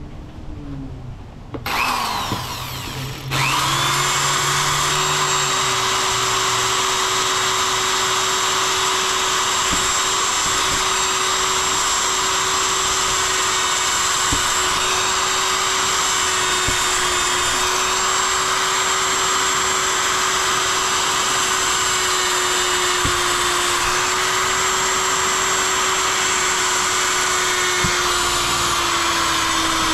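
Corded electric drill starting up about two seconds in, then running at a steady speed with its bit against the plastic lid of a blue plastic drum.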